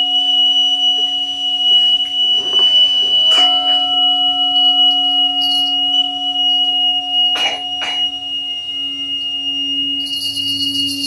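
Crystal singing bowl humming a steady low tone under a piercing, steady high whistle from a small hand-held flute blown by the player, a few soft knocks in between. About ten seconds in, a fast high jingle of small hand bells starts.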